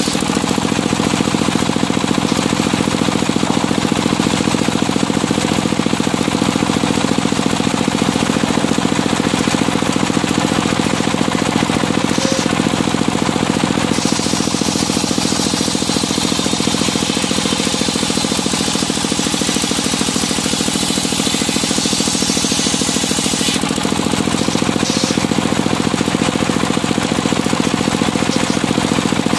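Circular sawmill running: the engine drives the big circular saw blade with a fast, steady pulse while the blade cuts through medang timber, throwing sawdust.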